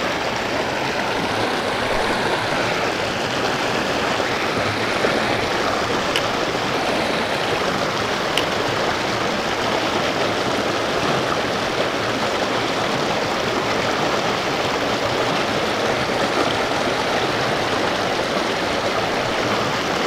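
Mountain creek rushing steadily over rocks and through a small cascade, an even, unbroken water noise.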